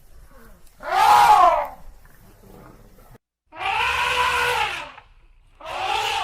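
An elephant trumpeting three times, each call a loud, arching blare; the first, about a second in, is the loudest.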